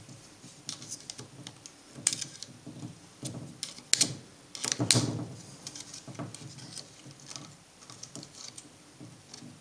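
Irregular light clicks, taps and scrapes of a small screwdriver and fingertips prying at the plastic brush holder and spring of an angle grinder, trying to free a worn carbon brush that is stuck; a few sharper clicks come in the middle.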